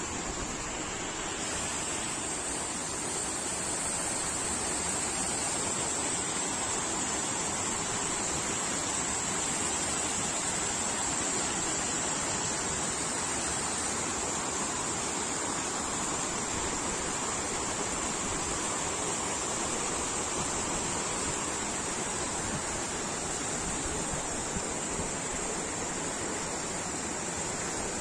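River water rushing steadily over rocks and down a stone channel, a continuous even rush of falling water.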